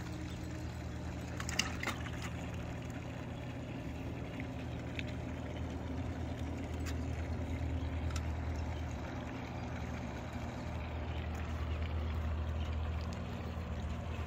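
A steady low mechanical hum and rumble, with a few faint clicks and rattles about two seconds in.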